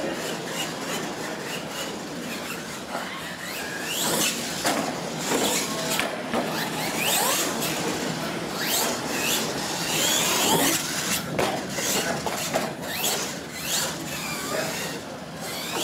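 R/C monster truck's motor whining up and down repeatedly with the throttle, with tyres squealing and scrubbing on a concrete floor as it drives and turns.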